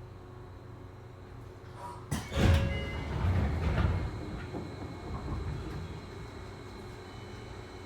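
Train car's sliding doors working while the car stands still: a sudden thud and rattle about two seconds in that dies away over a few seconds, over the low steady hum of the stopped car.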